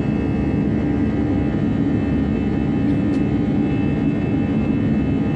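Cabin noise of a twin-engine jet airliner climbing after takeoff: the jet engines run steadily at climb power, a constant drone with a strong low hum and steady tones above it.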